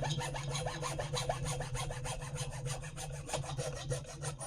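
A power tool cutting wood: a steady motor hum under rapid, even rasping strokes, about ten a second, which cuts off near the end.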